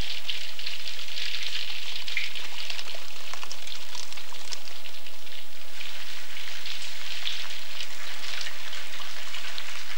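Water dripping and pattering in many drops from a seeping rock overhang, a dense steady spatter like rain.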